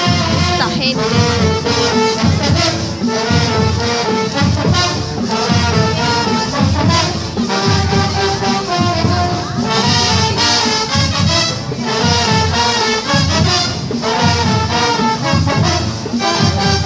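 Marching band playing a brass tune of trumpets and trombones over a steady drum beat, accompanying baton-twirling majorettes in a street parade.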